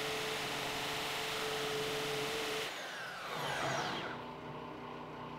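DeWalt DWM120K deep-cut portable bandsaw running, its blade cutting through steel plate with a steady whine. About three seconds in the trigger is released and the motor winds down with a falling whine.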